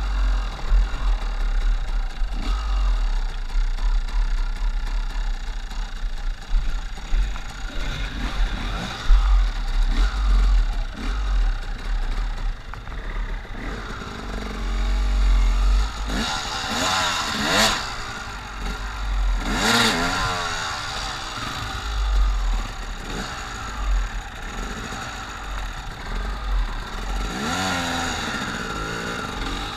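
Dirt bike engines revving in repeated bursts, rising and falling in pitch, loudest about halfway through and again near the end as a rider tries to get up a steep climb.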